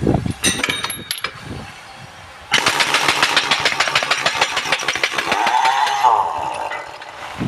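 Impact wrench hammering in one burst of about three and a half seconds, starting suddenly a couple of seconds in, with a whine in its last second before it stops. A few clicks and knocks come before it.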